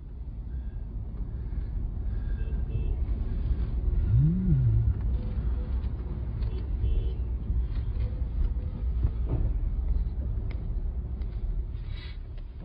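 Steady low rumble of a vehicle driving on the road, with a single short tone that rises and falls about four seconds in.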